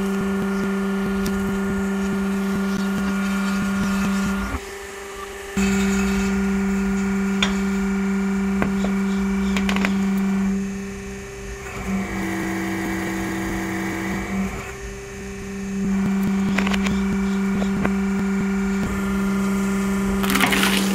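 A 100-ton hydraulic press's pump motor hums steadily, with scattered cracks and snaps from vegetables giving way under the ram. The hum cuts out briefly a few seconds in and turns quieter with a higher tone midway. Near the end comes a burst of crunching as a row of carrots splits under the platen.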